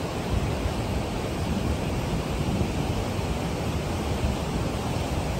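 Fast mountain river rushing over rocks: a steady wash of white water, with wind rumbling on the microphone.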